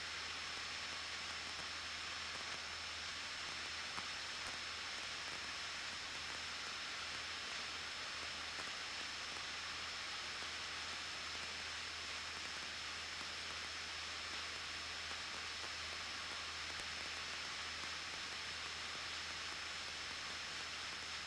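Steady hiss with a thin, constant high-pitched whine and a low steady hum beneath: the background noise of a Cessna 172N's cockpit intercom feed in cruise, with no one transmitting or talking.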